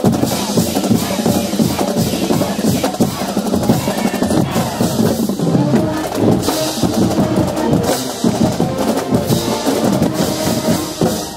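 Marching band drumline playing a cadence: snare and bass drums in a steady, driving beat.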